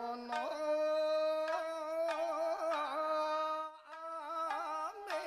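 Background music: a slow melody of long held notes with wavering ornaments, briefly dropping away just before four seconds in.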